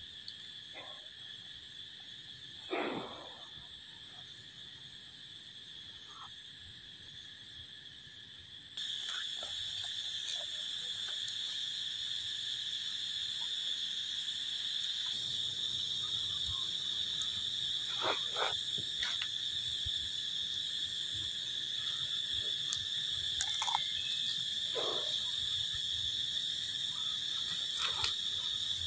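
A steady, high-pitched chorus of insects that gets louder about nine seconds in, with a few brief separate sounds over it, the loudest near the start.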